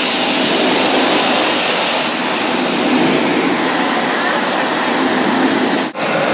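Spray nozzles on the overhead arm of an automatic touchless motorcycle wash spraying a fine mist of protectant over the bike: a loud, steady rushing hiss, like a tornado coming through.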